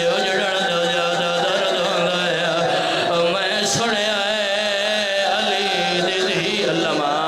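A man's voice chanting a drawn-out, wavering elegiac recitation into an amplified microphone, as a majlis zakir does, with a brief sharp click about halfway through.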